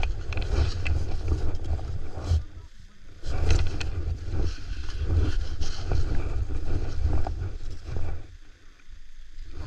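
Skis sliding and scraping over snow, with wind buffeting the camera microphone in a steady low rumble. The sound drops away briefly about three seconds in and again near the end.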